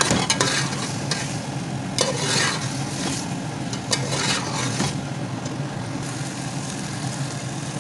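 A slotted steel spoon stirring and scraping vegetables, tomato and spices in a steel pot, with the mixture sizzling in the oil. The scrapes come in strokes during the first few seconds; after that, the sizzle and a low hum continue steadily.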